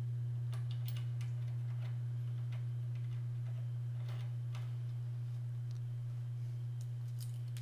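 Steady low hum under a scattering of faint, irregular ticks and clicks.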